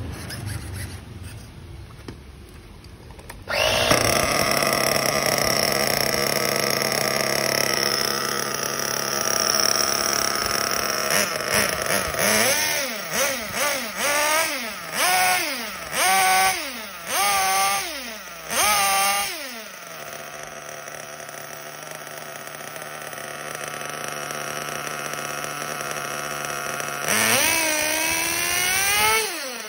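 Kyosho KE21 .21 nitro two-stroke glow engine in an RC buggy starting up a few seconds in and running, then revved in a run of quick throttle blips before settling to a steady idle. Near the end the idle climbs to a higher steady speed as the carburettor's throttle screw is turned during tuning.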